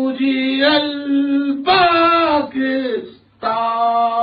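A man's voice singing in long, steadily held notes, in three drawn-out phrases with short breaks about one and a half and three seconds in.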